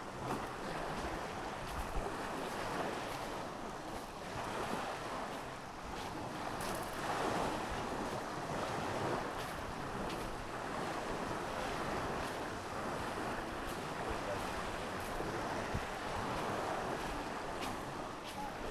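Small waves washing onto a sandy shore, the surf swelling and easing every few seconds, with wind rumbling on the microphone.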